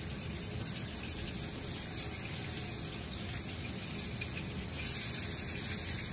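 Liver frying in hot oil in a frying pan: a steady sizzle that gets louder about five seconds in.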